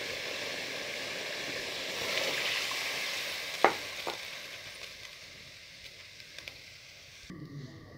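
Chicken pulao masala sizzling in an aluminium pot, a steady hiss that slowly fades. A steel ladle clinks against the pot twice a little past halfway. The sizzle cuts off near the end.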